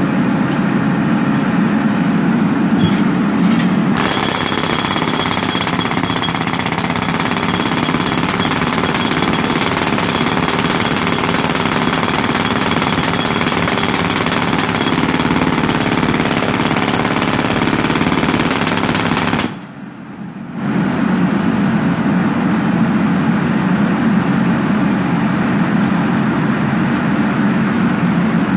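Pneumatic jackhammer fed by a Denair portable air compressor, hammering continuously as it breaks up a concrete road surface. It stops for about a second roughly two-thirds of the way through, then starts hammering again.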